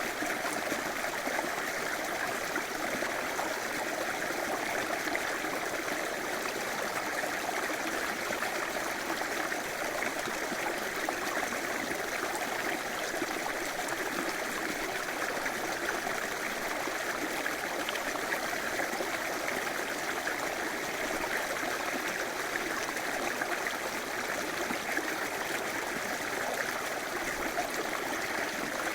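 River water running steadily over rocks: a continuous rushing and babbling with no breaks.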